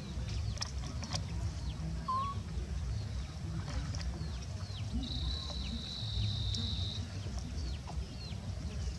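Outdoor ambience of small birds chirping in short, repeated falling notes, with a steady high tone for about two seconds in the middle, over a constant low rumble.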